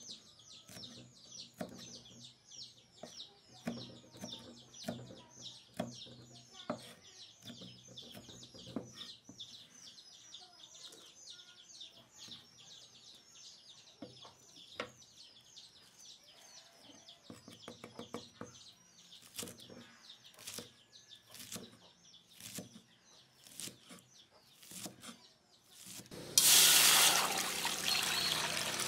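A knife knocks on a wooden chopping board as red chillies and spring onions are chopped, with a fast, high chirping going on behind it through the first half. Near the end a loud rushing hiss starts suddenly as liquid is poured into a wok.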